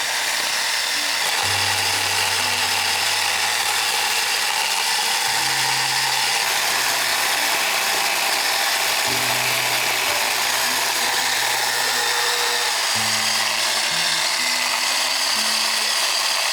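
Background music of held low notes that shift every few seconds, over a steady, loud high-pitched buzzing hiss.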